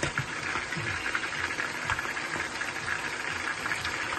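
A steady background hum, with a few soft knocks as raw beef chunks are pushed around in a steel cooking pot.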